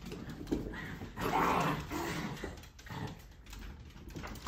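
Puppies and small dogs barking and growling as they play, with several short calls; the loudest lasts under a second, about a second and a half in.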